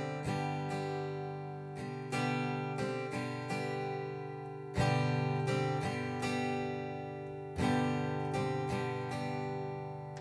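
Steel-string Martin acoustic guitar in standard tuning strumming a G chord that moves to Gsus4 and back, in down-up strokes. The first finger adds the C on the B string's first fret for the sus4. A heavier strum lands about every three seconds, near the middle and again later on, with lighter strums between.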